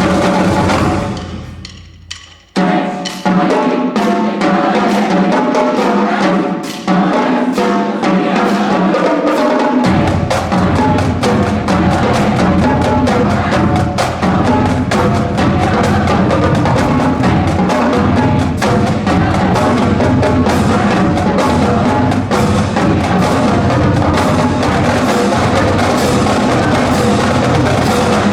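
Marching band drumline playing a cadence, with snare drums and stick clicks and a full, echoing sound in a gymnasium. About a second in the playing stops and rings away, then starts again sharply about two and a half seconds in, and bass drums join in about ten seconds in.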